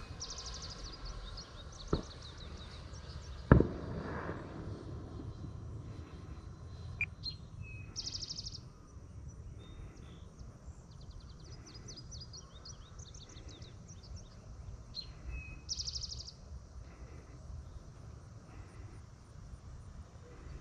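Birds calling with short, high, rapid trills repeated every few seconds over a low rumble of outdoor wind noise. A faint whine from the distant electric ducted-fan jet fades out in the first couple of seconds. Two sharp knocks sound early on, the second one loud.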